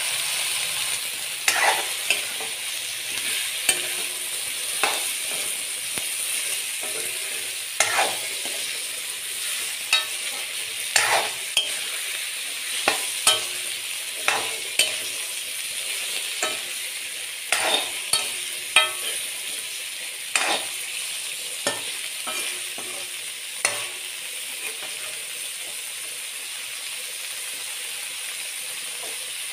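Boiled cauliflower florets sizzling steadily in hot oil in a metal pan, with a steel ladle knocking and scraping against the pan at irregular intervals as they are stirred. The stirring stops about three-quarters of the way through while the sizzle goes on.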